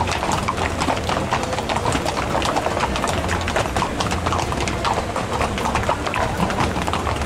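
Hooves of several horses walking across a paved bridge deck: a dense, irregular clatter of clip-clops from many hoofbeats overlapping.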